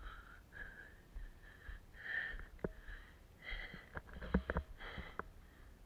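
Breathing close to the microphone, soft breaths coming about once a second, with a few sharp clicks of footsteps on a stony path in the second half.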